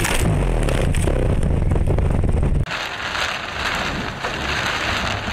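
Car noise with a heavy low rumble, then a sudden change about two and a half seconds in to the steady hiss of heavy rain and tyre spray on a wet highway, heard from inside the car.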